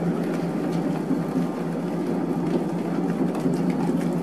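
Electric dough mixer running steadily with a low hum as it kneads bread dough with margarine worked in, mixing until the dough turns smooth and elastic.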